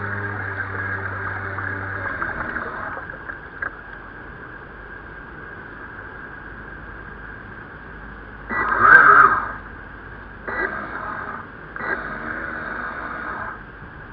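Water sloshing and gurgling along the hull of a 1-metre-class radio-controlled sailboat under sail, heard close up from its deck. There are three short, louder bursts about two-thirds of the way through, the first and loudest at about eight and a half seconds.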